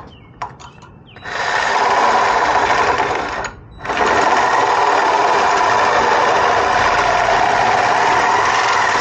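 Reciprocating saw cutting through an aluminium ladder-rack upright. It starts about a second in, stops briefly after about three and a half seconds, then runs steadily again.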